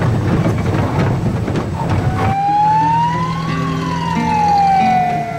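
A loud noisy rumble with many sharp knocks. About two seconds in it gives way to a police-car siren wailing: one rise, then a long slow fall, over a steady low held note.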